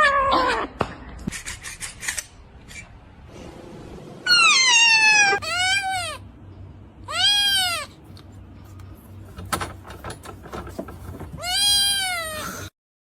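Cat meowing four times, drawn-out meows that rise and fall in pitch, the first one sliding downward, with a few light clicks between them.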